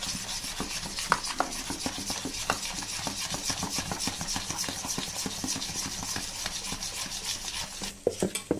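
Metal spoon stirring thick idli batter round a steel bowl in one direction, a steady scraping rub with quick small clicks against the bowl, as baking soda and hot oil are mixed in. Near the end a few sharper knocks sound and the stirring stops.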